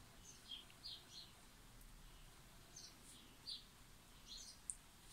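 Near silence: quiet room tone with a scattering of brief, faint, high-pitched chirps or squeaks at irregular moments.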